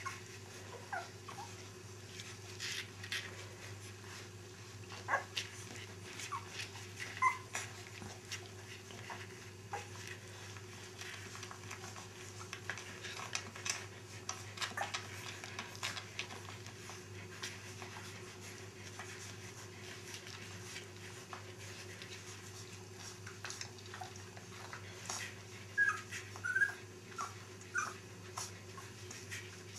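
Puppies giving a few short squeaks and whimpers among scattered small clicks and rustles, over a steady low hum.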